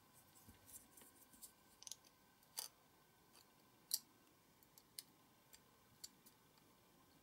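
Faint small clicks and taps of a part being handled and pressed into a diecast toy car body, with two louder clicks about two and a half and four seconds in.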